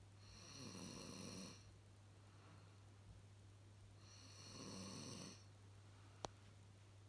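Snoring: two long, slow snoring breaths about four seconds apart, with a single sharp click near the end and a steady low hum underneath.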